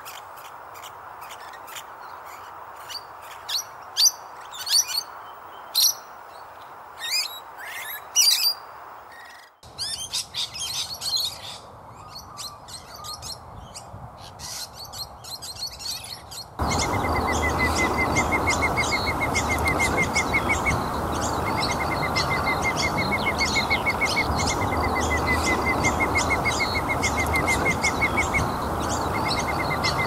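Musk lorikeets giving shrill, sharp chirps, one after another. About halfway through the sound changes to a louder, denser chorus of bird chirps over a steady, rapid trill.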